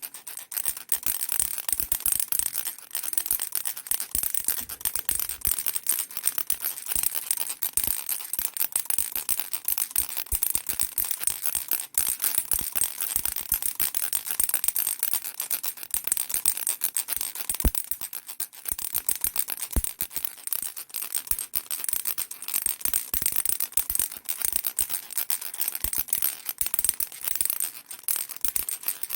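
Baby rattle shaken without pause, its small beads clattering in a dense, bright stream of clicks.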